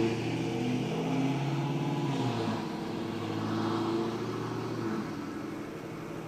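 Prusa Mini+ 3D printer's stepper motors whining in steady tones that jump to new pitches as the print head changes moves while printing, over a low fan hiss. The motor tones fade out about five seconds in, leaving mostly the fan.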